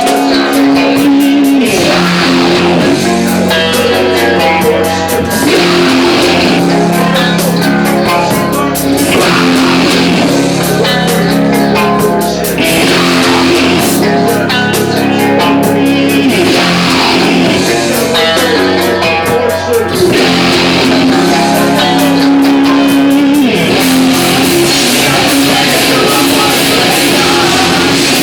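Live rock band playing loud and steady, led by distorted electric guitar over bass and drums.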